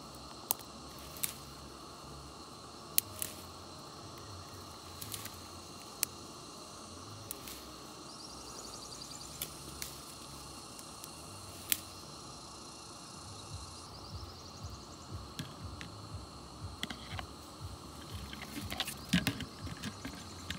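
Insects calling steadily in the vegetation, a thin high drone with a second rhythmic trill in the middle. Scattered sharp clicks break through it, and a flurry of clicks and rustles comes near the end.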